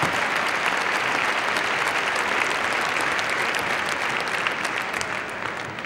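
Audience applauding, steady clapping from a large crowd that tapers off near the end.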